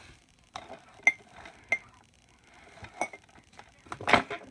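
Plastic VHS case being handled: a few light clicks and taps spaced irregularly, with one louder knock about four seconds in.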